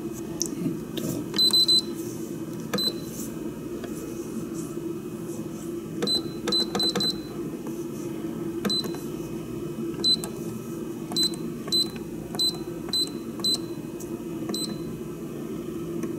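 Tiger rice cooker's keypad beeping, one short high beep per button press while its preset cook timer is being set. About sixteen beeps come singly and in quick runs of two or three, over a low steady hum.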